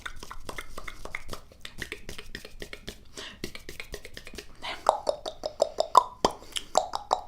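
Close-up ASMR clicks and soft pops in a quick, uneven run. From about two-thirds through they get louder and more regular, each pop with a hollow, pitched ring.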